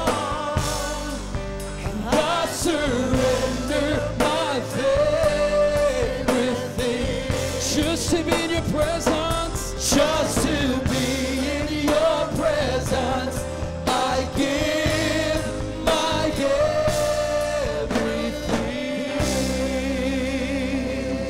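Christian worship song: voices singing a wavering melody over a steady bass accompaniment.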